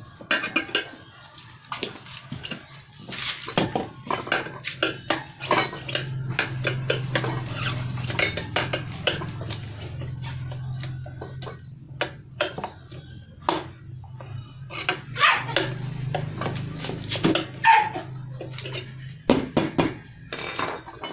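Steel tire levers clinking and scraping against a spoked steel motorcycle rim in many irregular sharp knocks as the tyre bead is pried over the rim edge. A low steady hum runs underneath from a few seconds in until near the end.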